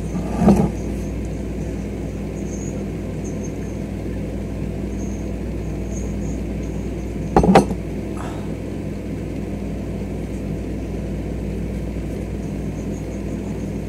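Steady low hum with faint hiss, broken by two brief sounds of drinking from a glass mug: a short knock about half a second in and a sharper, louder one a little past seven seconds.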